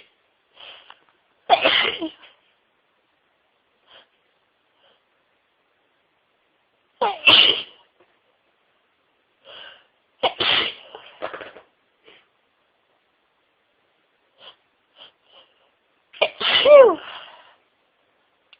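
A person sneezing four times in a fit, several seconds apart, with short catching breaths between the sneezes. The last sneeze is voiced, falling in pitch.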